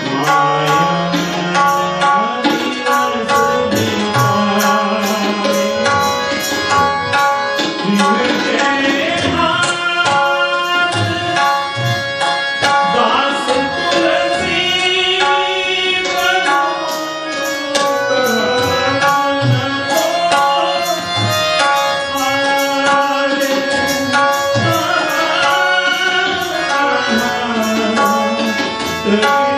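Light Indian vocal music: a male singer with harmonium accompaniment and tabla. The tabla strokes keep a running rhythm under the harmonium's sustained reed chords, and the sung melody comes and goes, clearest about halfway through.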